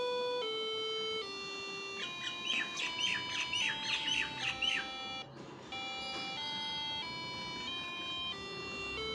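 Loudspeaker driven by an Arduino Uno playing the sa re ga ma scale as a run of buzzy electronic beeps. Each note is held for under a second and steps down in pitch, then climbs back up, with a short break about five seconds in. A series of quick chirps sounds over the notes from about two to five seconds in.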